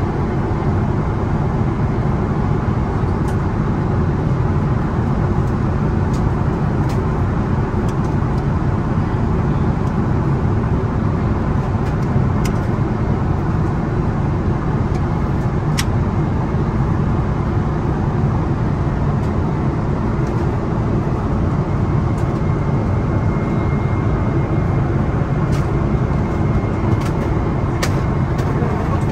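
Cabin noise of a Boeing 777-300ER in flight: a steady, deep rush of airflow and engines, with a few faint light clicks.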